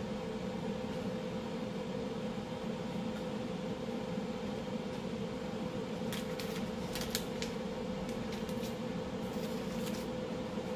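Steady mechanical hum with a held tone, like a kitchen fan or appliance running, with a few light clicks and taps between about six and ten seconds in.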